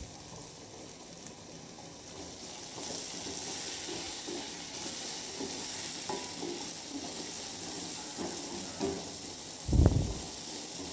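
Sliced onions frying in oil in a nonstick kadai with a steady sizzle as they are sautéed to soften, with a spatula scraping and knocking against the pan as they are stirred. A dull thump near the end.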